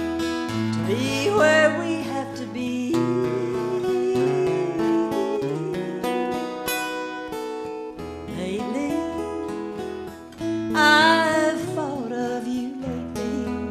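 Live Americana song: a woman singing with vibrato over strummed and picked acoustic guitar, her loudest sung phrases coming about a second in and again near the end.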